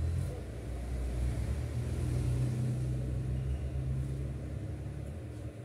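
A low rumble, with a steady low hum that is strongest through the middle.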